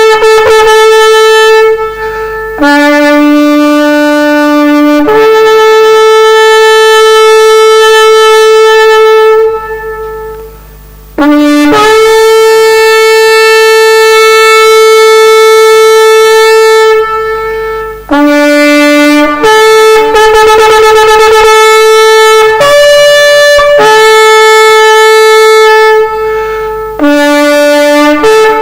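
Loud, long horn blasts of the trumpet kind, switching between two pitches: a shorter lower note rising into a long held higher one, over and over, with a brief drop-off about ten seconds in.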